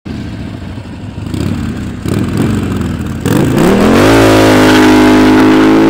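An engine runs with a rough, uneven low note, then revs up about three seconds in and holds steady at high revs.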